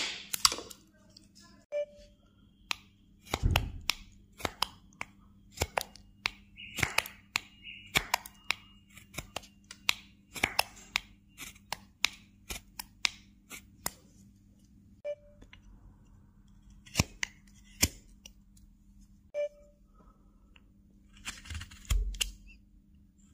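Carving knife slicing into a block of wood by hand, a long run of short, sharp cuts and scrapes at an irregular pace as chips come away, over a faint steady low hum.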